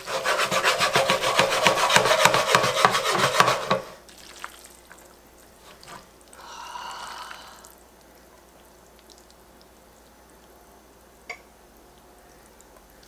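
Silicone-tipped tongs vigorously tossing and stirring ramen noodles in a coated frying pan, a quick run of wet scraping and rubbing strokes, as the egg and cheese mixture is worked into the noodles. After about four seconds the stirring stops and only softer handling follows, with a short squeak a few seconds later and a single click near the end.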